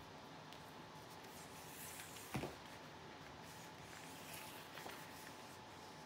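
Faint tabletop handling noises over quiet room tone as a sheet of painting paper is moved and turned around on a plastic-covered table. A brief rustle comes a little before two seconds in, and a single sharp knock follows just after it.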